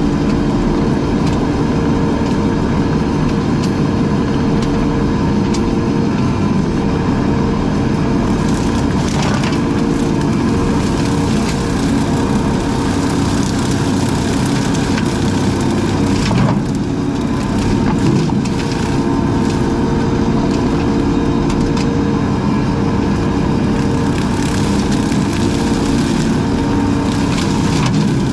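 A heavy brush-cutting machine runs steadily under load, its engine drone mixed with wood crunching and splintering as brush is cut, with a few sharp cracks.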